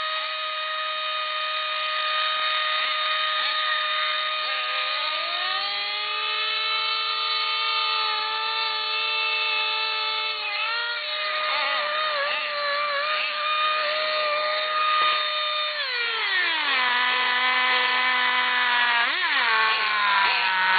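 Radio-controlled car motor whining at a steady pitch. It steps up about five seconds in, falls back around ten seconds, drops lower around sixteen seconds and swoops up and down once near the end, following the throttle.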